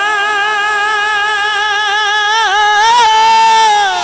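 A male naat reciter holding one long sung note, drawn out between the words of the line. The pitch stays level, with a small dip about halfway through and a slight lift near the end before it fades.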